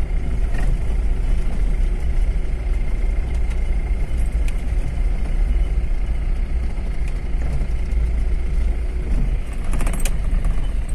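Car driving slowly on an unpaved dirt road, heard from inside the cabin: a steady low engine and tyre rumble, with a short burst of rattling near the end.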